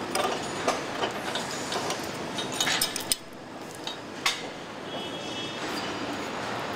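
Scattered sharp metallic clinks and knocks of assembly work on a truck cab, over steady factory-hall noise. The strongest knocks come around three and four seconds in, and a brief high whine follows about five seconds in.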